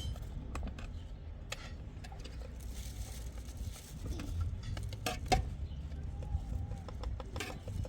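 Scattered light clinks and knocks of dishes and utensils being handled while vegetables are prepared for pickling, over a steady low rumble, with one louder knock about five seconds in.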